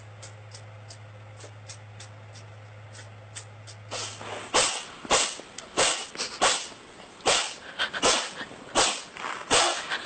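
A cat in a sneezing fit: about ten sharp sneezes in quick succession, starting about halfway through. Before them there are only faint ticks over a low hum.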